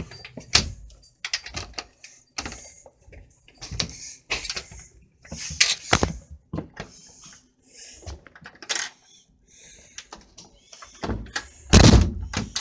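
Irregular knocks, clicks and rustling from things being handled around a louvered closet door, with a heavier knock near the end.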